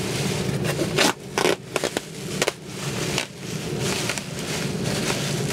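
Foil bubble-insulation liner bag being pulled open and crumpled by hand: continuous crinkling and rustling with sharp crackles, the loudest between about one and two and a half seconds in, over a steady low hum.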